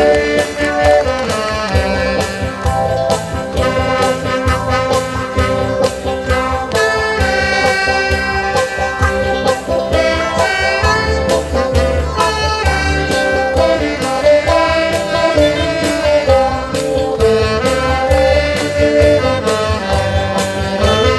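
Band playing an instrumental break of a song: a melody line over a steady beat, with no singing.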